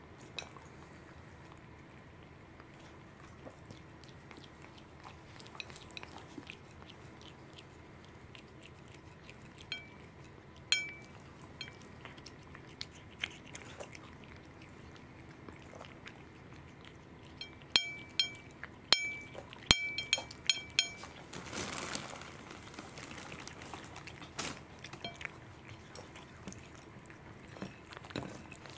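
Cat eating raw salmon off a ceramic plate: soft chewing and smacking, broken by sharp ringing clicks of the metal tag on its collar tapping the plate, with a quick run of clicks about two-thirds of the way through.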